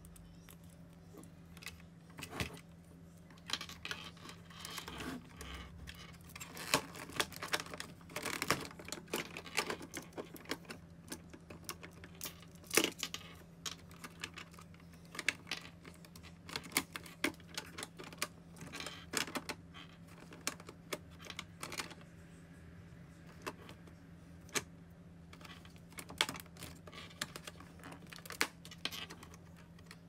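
Irregular light clicks and rattles of small hard objects, coming in clusters and thinning out near the end, over a faint steady low hum.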